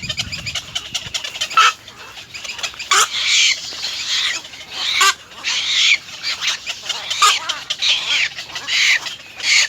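Nestling birds begging: harsh, raspy squawking calls repeated about once a second.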